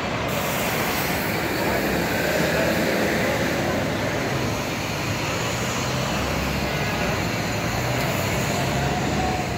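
Steady city street traffic noise, with buses and cars going by.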